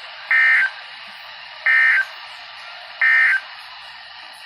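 NOAA Weather Radio SAME end-of-message data code played through a Midland WR-120EZ weather radio's speaker: three identical short, shrill digital bursts about a third of a second long and about 1.3 seconds apart, over steady radio hiss. They mark the end of the severe thunderstorm warning alert.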